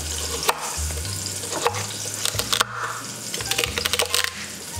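Chef's knife chopping carrots and celery on a bamboo cutting board, with several sharp knocks of the blade hitting the board, over the steady sizzle of short ribs searing in olive oil in a Dutch oven.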